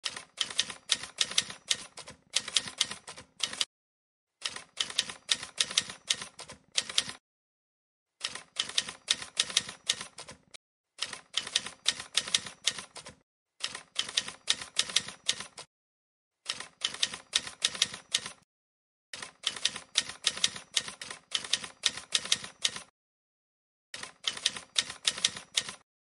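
Typewriter keystroke sound effect: rapid runs of sharp key clacks in about nine bursts of two to four seconds each, with short silent pauses between them, marking on-screen captions being typed out letter by letter.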